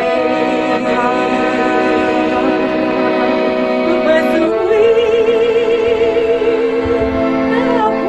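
Romanian folk band: a trumpet plays a held, ornamented melody over accordion, then about halfway through a woman's voice comes in singing long notes with wide vibrato, the accordion continuing underneath.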